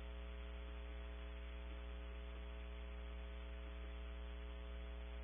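Steady electrical mains hum with a faint hiss from a nest-box camera's audio feed, with a few faint soft ticks scattered through.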